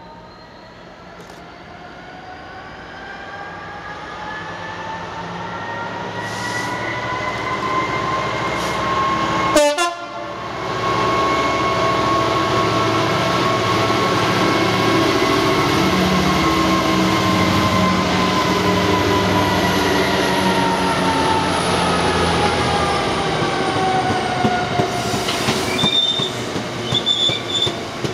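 A Class 66 diesel freight locomotive with its EMD two-stroke V12 engine comes in and runs past, the engine drone and rumble building over the first several seconds, with a sudden loud knock about ten seconds in. A long train of hopper wagons follows, rumbling over the rails, with short bursts of wheel squeal near the end.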